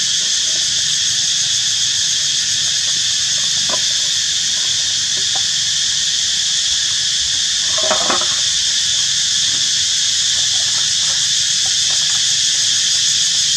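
Steady, high-pitched insect chorus, a continuous shrill drone, with a brief squeak about eight seconds in and a few faint ticks.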